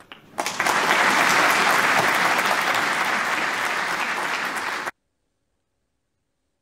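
Applause after a snooker shot, starting just after a couple of sharp clicks and running loud and steady for about four and a half seconds before it cuts off suddenly.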